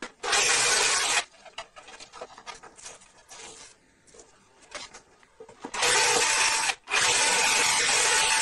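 Power drill with an 8 mm bit drilling into a wooden speaker cabinet: a short burst at the start, then about four seconds of quieter rubbing and scraping as shavings are wiped off the panel, then steady drilling again from about six seconds in, with a brief stop about a second later.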